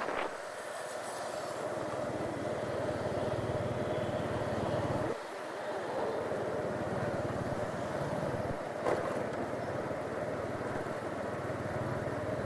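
Motorbike running along a city street, heard from the rider's seat: a steady engine and road noise. It dips briefly about five seconds in, and there is a short click near nine seconds.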